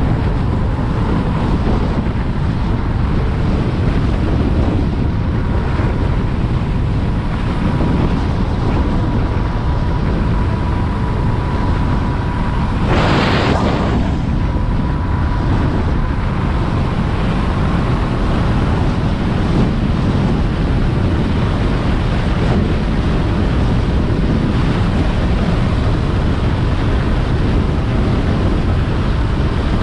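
Wind buffeting the microphone of a Kaabo Wolf Warrior King electric scooter while cruising, over a steady low rumble. A faint steady whine runs through the first half, and a brief hiss rushes up about thirteen seconds in.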